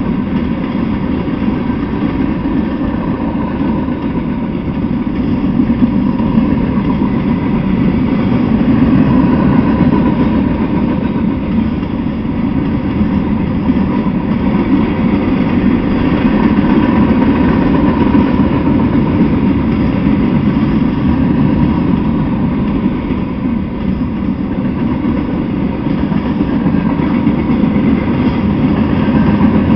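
Freight train cars rolling past on the rails: a loud, steady rumble of steel wheels on track that swells and eases a little as the cars go by.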